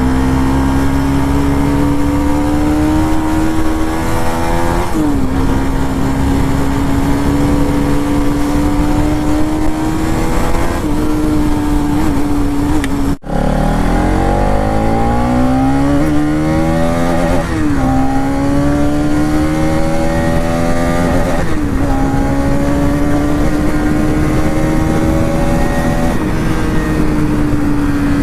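Bajaj Pulsar NS200's single-cylinder engine and exhaust while the bike is ridden. The note climbs slowly and dips briefly every few seconds as the throttle is eased. The sound breaks off for an instant about halfway through and then carries on.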